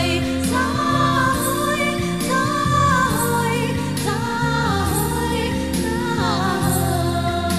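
Music: a melody with vibrato over sustained accompaniment and a steady beat a little under once a second.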